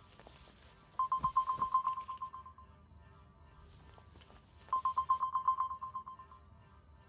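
Phone ringing with a rapid electronic trill: two rings of about a second and a half each, the first about a second in and the second near five seconds in.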